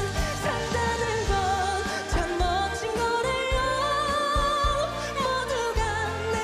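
A male trot singer sings over instrumental accompaniment, holding long notes with vibrato.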